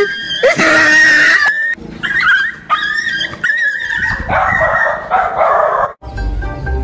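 Dogs yelping and squealing in fright as they flee a toy tiger. About six seconds in, this cuts to background music with a steady beat.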